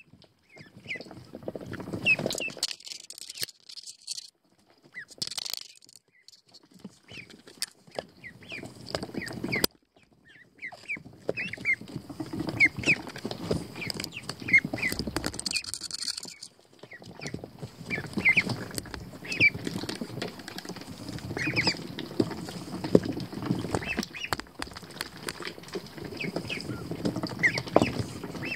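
Pekin ducklings peeping in many short, high chirps, over the rustle of wood-shavings bedding as they move and forage in it.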